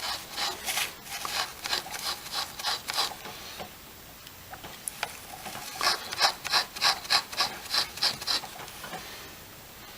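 Soldering iron tip being scrubbed back and forth in a tip cleaner to clean off excess solder: two runs of quick scratchy strokes, about three a second, with a short pause between.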